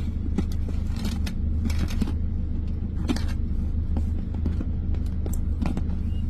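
Scattered light clicks and taps of plastic phone parts being handled while the new battery is fitted into the LG phone, over a steady low rumble.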